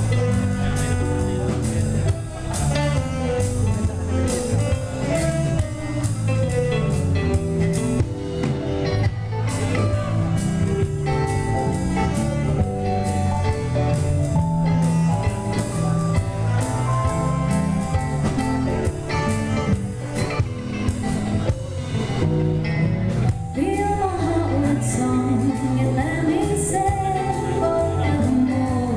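Live band playing a song: a woman singing over electric guitars, keyboard, bass and a drum kit keeping a steady beat.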